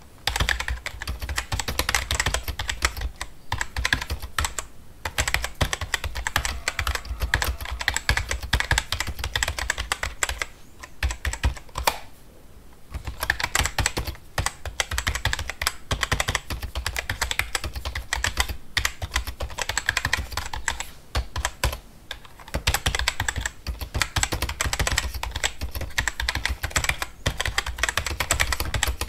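Fast typing on a computer keyboard: a dense, rapid run of key clicks broken by a few short pauses, the longest about twelve seconds in.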